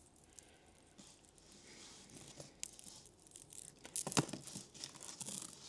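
Small clicks and soft rustling as a pearl necklace is handled during a clasp repair, with a sharper cluster of clicks about four seconds in.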